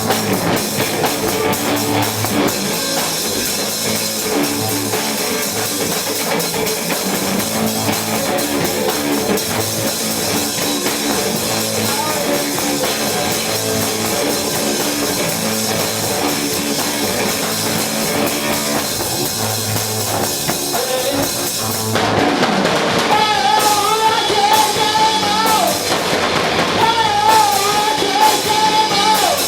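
Garage rock band playing live: drum kit, electric guitar and bass in a dense, loud mix. About two-thirds of the way through it gets louder and a wavering held melody line comes in over the band.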